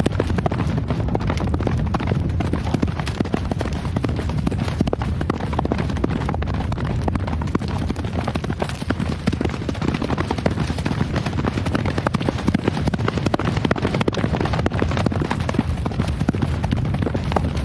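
Horse hooves galloping on ground: a fast, dense, unbroken run of hoofbeats over a steady low rumble.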